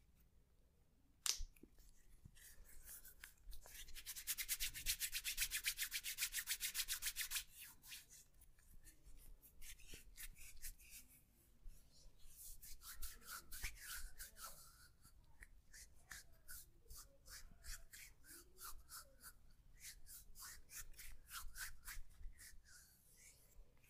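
Hands rubbing in massage strokes, faint: a fast, even run of quick rubbing strokes from about 4 to 7 seconds in, then slower, irregular strokes.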